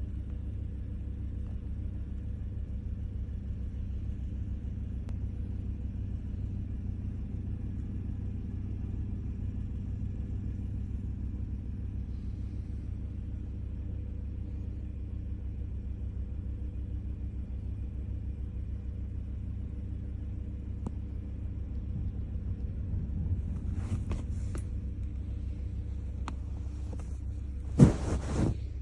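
A steady low rumble with a fine, even pulse, like a running vehicle. Near the end come a few brief rustling or handling noises, the loudest a sharp knock about a second before the end.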